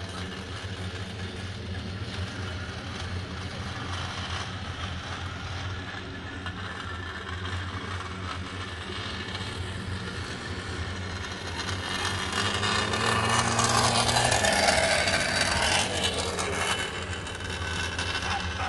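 Motor of a dog-track lure drive running with a steady hum. About twelve seconds in it swells into a louder rushing whir for a few seconds as the lure is pulled round, then eases back.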